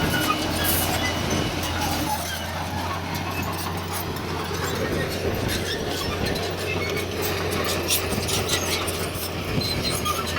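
Heavy earth-moving machinery's diesel engine running steadily, with repeated metallic clanks and clicks. Part of the low hum drops away about two seconds in.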